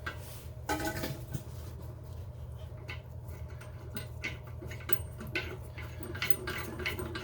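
Small clicks and taps of a flat washer and nut being fitted by hand onto a toilet tank-to-bowl bolt, more frequent in the second half, over a steady low hum.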